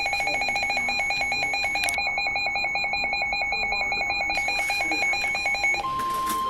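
Weather alert radio sounding its alarm for a flash flood warning: a rapid pulsing beep, about a dozen pulses a second, over steady higher tones. Near the end it gives way to a single steady tone, the 1050 Hz NOAA Weather Radio warning alert tone.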